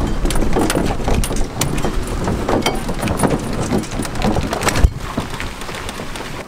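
Aluminum Lund boat and its trailer rattling and clattering while towed over a bumpy gravel road, with a low rumble of wind on the microphone. One sharp bang about five seconds in, after which the rattling eases.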